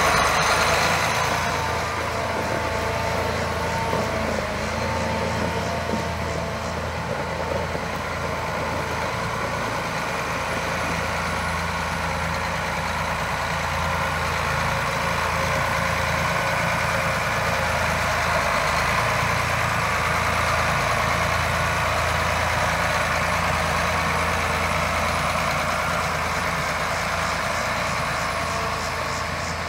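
John Deere 8R-series tractor's diesel engine running steadily as the tractor drives off.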